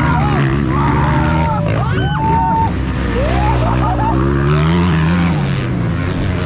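Motocross bike engine running hard, its pitch rising and falling as the throttle is worked, with higher pitched whines sliding up and down over it.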